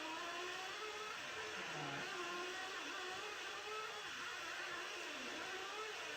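Small nitro engines of Losi LST and LST2 RC monster trucks, heard from onboard, revving up and down over and over as the throttle is worked, their pitch rising and falling every second or so.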